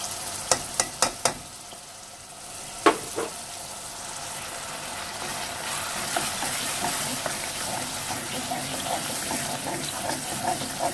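Onion-tomato masala sizzling in hot oil in a pot while being stirred with a wooden spoon, a steady frying hiss with fine crackle that grows slightly after a few seconds. Several sharp taps in the first three seconds, as a metal spoon is knocked against the pot to shake off the powdered spices.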